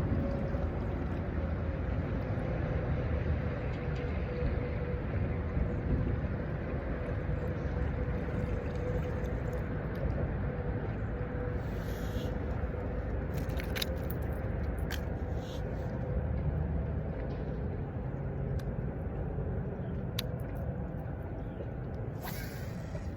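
A steady engine drone with a low rumble and one held tone that sinks slightly in pitch, with a few faint clicks about halfway through and again near the end.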